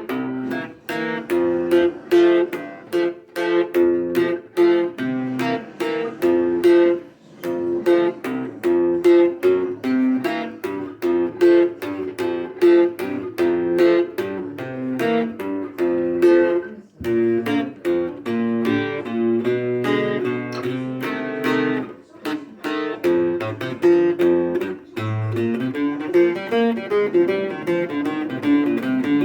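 Tex-Mex guitar played with a light pick, heard acoustically without an amplifier: a continuous run of picked single notes and chords at about two or three a second, with a couple of short breaks.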